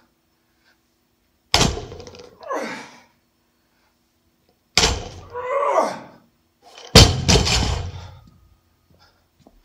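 Barbell loaded with 25 lb rubber bumper plates hitting the gym floor with heavy thuds, three times, the last landing bouncing with several strikes in quick succession. Each thud is followed by a short hoarse sound that falls away.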